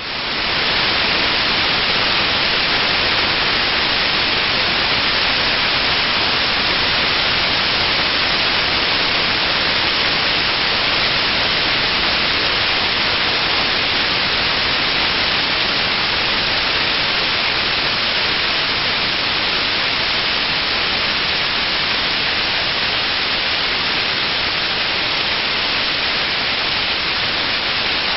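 Waterfall: a loud, steady rush of falling water, fading in at the very start and then holding even throughout.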